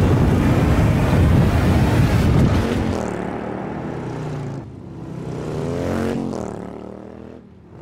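Off-road engines of a quad bike and dirt bikes driving past. A loud rumble comes first, then from about three seconds in an engine rises and falls in pitch as it revs and passes.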